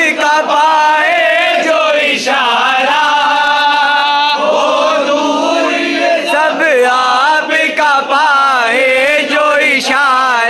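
A group of men singing an Urdu devotional song (manqabat) together, with no instruments heard, one lead voice and others joining in. Long held notes that waver in pitch.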